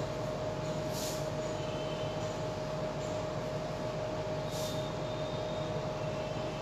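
Steady room hum with a constant mid-pitched whine, from a running fan or air conditioner, with two brief faint squeaks of a marker writing on a whiteboard, about a second in and near five seconds.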